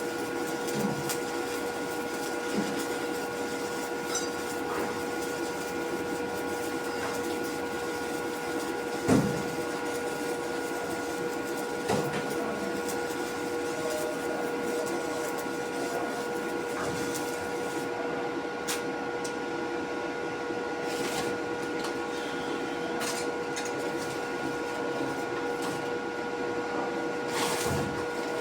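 Steady machine hum with several fixed tones under a noisy haze, broken by a few short knocks, the loudest about nine seconds in and another about twelve seconds in.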